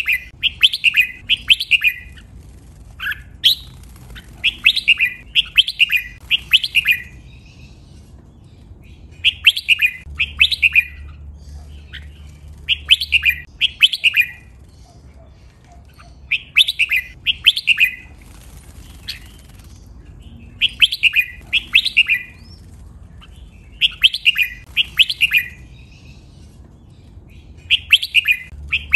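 Red-whiskered bulbul singing: short phrases of several quick, clear notes, repeated every three to four seconds.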